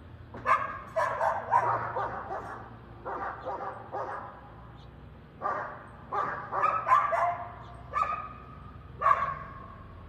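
A dog barking and yipping in bouts of several barks, with short pauses between bouts.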